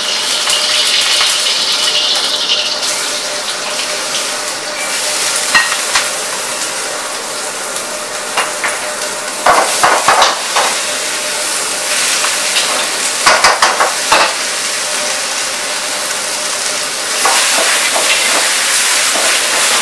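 Stir-frying in a wok over a restaurant wok burner: sliced onions and pork sizzling steadily in hot oil, with a metal ladle clanking and scraping against the wok in two short bursts. Near the end the sizzle grows louder as liquid is splashed into the hot wok and it flares.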